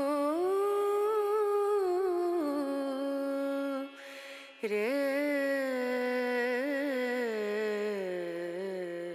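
A single voice chanting in long, held, wavering notes without words, in the manner of a Hindu devotional chant. It comes in two drawn-out phrases with a short breath between them about four seconds in, and the second phrase slowly falls in pitch.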